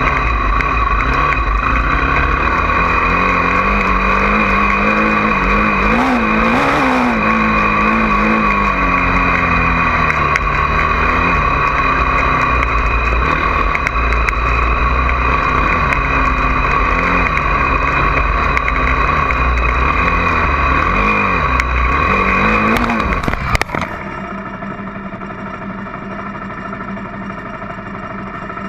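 Honda CRF450R single-cylinder four-stroke dirt bike engine being ridden, its revs rising and falling. Near the end the sound drops abruptly to a quieter, steadier drone.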